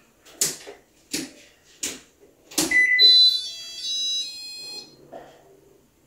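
Electrolux IM8S inverter refrigerator's electronic power-on chime, a short run of high beeps lasting about two seconds, starting about halfway through as power returns to it after the breaker is switched back on. A few soft knocks come before it, and a faint low hum follows near the end.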